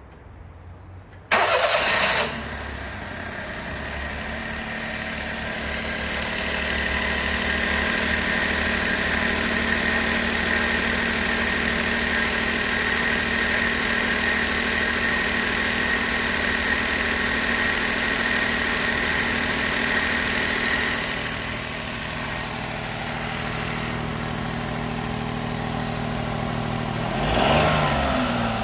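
Daihatsu Mira Custom's three-cylinder engine cranked and started about a second in, then idling steadily with a thin high-pitched whine over it, an abnormal noise that seems to come from the alternator after the water pump was replaced. The whine fades out about two-thirds of the way through, and the engine is briefly revved near the end.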